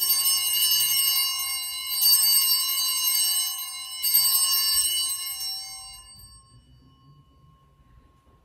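Altar bell rung three times, about two seconds apart, each ring lingering and dying away, fading out about two seconds after the third. It marks the elevation of the chalice just after the consecration.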